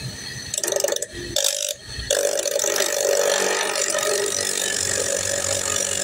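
Abrasive cut-off wheel grinding through a hydraulic hose: two brief touches in the first two seconds, then a steady loud cut from about two seconds in.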